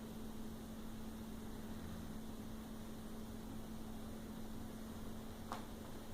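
A steady low hum over an even hiss, with a brief faint click about five and a half seconds in.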